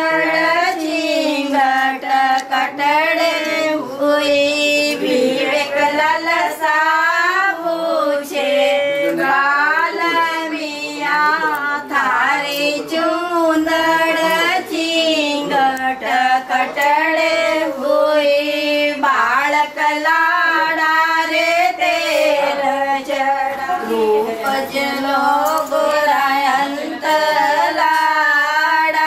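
High voices singing a melody with long, wavering held notes.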